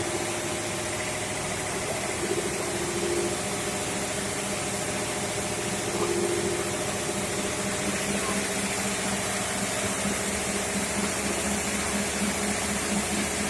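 Fire pump and its engine running steadily at constant speed, a steady droning hum.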